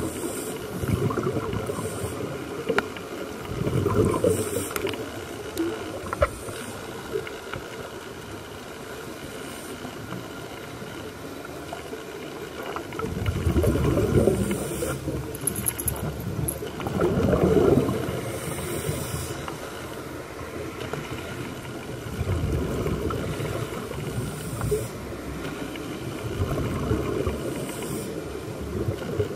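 Underwater sound of scuba divers breathing through regulators: exhaled bubbles rush and gurgle in irregular surges every few seconds, with patches of high hiss between them. The surges are loudest twice in the middle.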